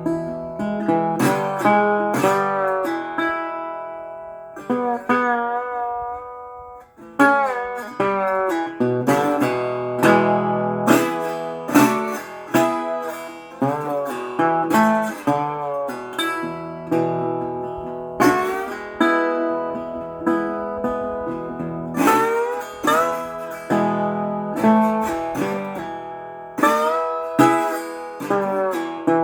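Solo guitar played by hand, picked notes and strums in a bluesy style, with some notes sliding in pitch, and heavy room reverb. The playing dies away about six seconds in and starts again a second later.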